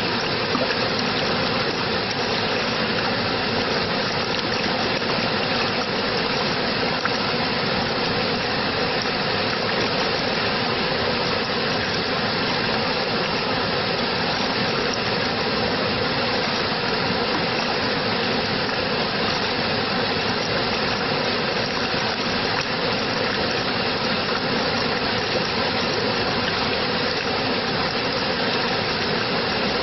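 Steady, unbroken rushing water.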